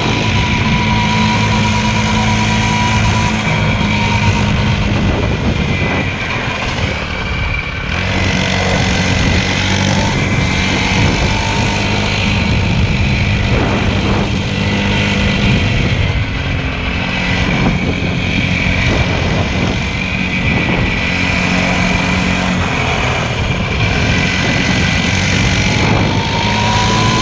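Motorcycle engine running under way, its note holding steady and then stepping to a new pitch every few seconds, under a loud, constant rushing hiss.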